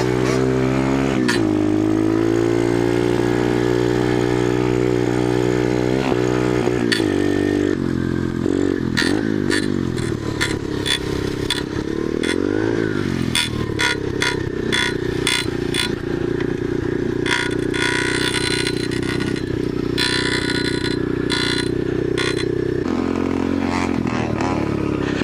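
Small dirt bike engine running under way on a trail, its revs rising and falling with the throttle, with many short clattering knocks from about eight seconds in as the bike goes over rough ground.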